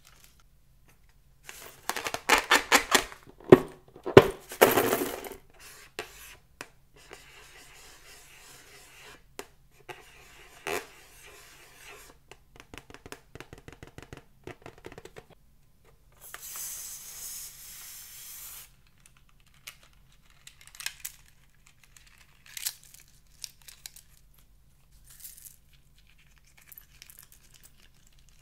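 Rubber balloon being squeezed and rubbed by hand in slime and foam beads: dense, loud crackling and clicking in the first few seconds, then softer scattered crackles. Past the middle there is a hiss of about two seconds.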